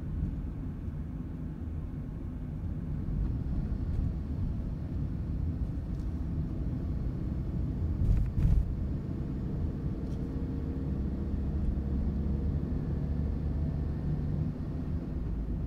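Car driving slowly, with a steady low road and engine rumble and a couple of short thumps about eight seconds in.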